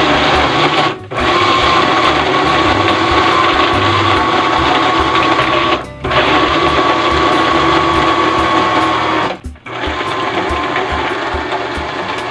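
Electric countertop blender running, puréeing steamed squash with oil, evaporated milk and sugar into a smooth batter. The motor cuts out briefly three times and runs a little quieter after the last break, near the end.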